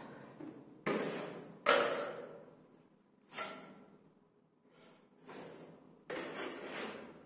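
Steel plastering spatula scraping over wet plaster on a wall, in several separate strokes, each starting sharply and fading. Later on the blade is scraped against a second spatula to load or clean it.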